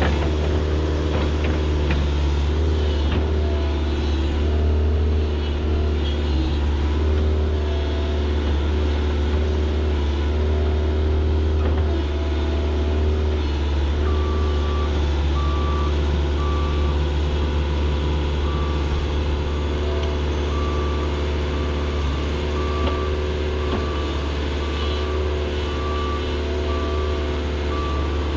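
Heavy diesel equipment running steadily under a deep engine drone, with a backup alarm beginning to beep at an even pace about halfway through.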